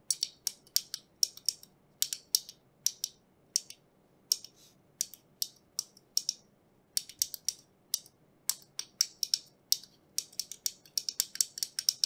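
Typing on a Mechboards PocketType, a pocket-sized mechanical keyboard: irregular clacking keystrokes, a few a second with short pauses, coming faster near the end.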